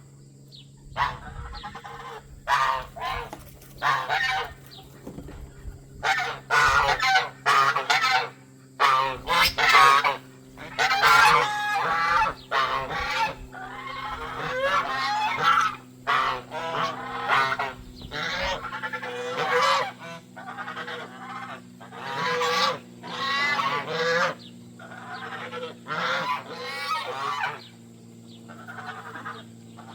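Domestic geese honking over and over, with calls coming in quick overlapping runs and fewer, quieter calls near the end. A steady low hum runs underneath.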